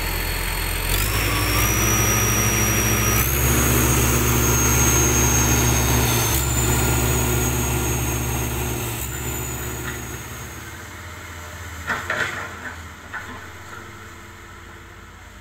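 Crawler bulldozer's diesel engine and drivetrain running under load, the engine note stepping up in pitch several times with a high whine that rises along with it. After about nine seconds it dies down, with a few metallic clanks a little later.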